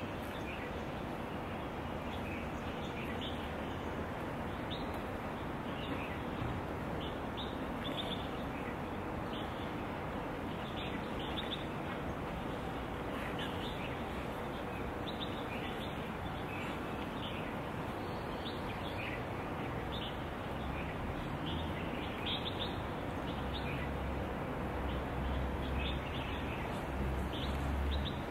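Outdoor ambience: a steady background hiss with frequent short bird chirps scattered throughout, and a low rumble in the last few seconds.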